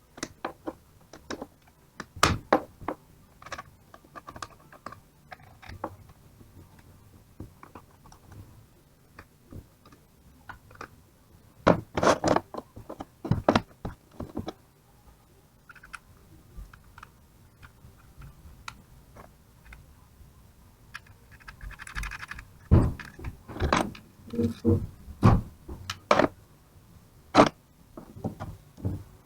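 Metal alternator parts and hand tools being handled on a workbench: scattered clinks, clicks and knocks, coming thick a little before the middle and again over the last quarter.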